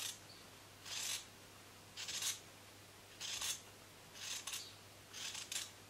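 Scissors snipping through fabric, cutting out a circle with short, even snips about once a second.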